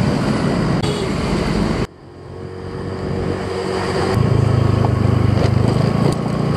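Motor scooter engine running and road noise as it is ridden, heard from the rider's seat. The sound cuts off abruptly about two seconds in, then grows steadily louder again with a low, even drone.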